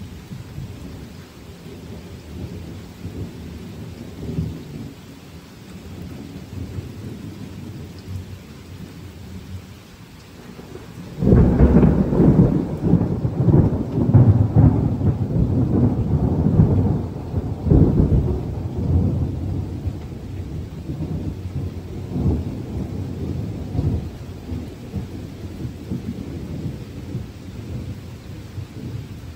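Thunderstorm with rain: low rumbling of thunder, then about eleven seconds in a loud thunderclap breaks suddenly and rolls for several seconds before fading back to a low rumble.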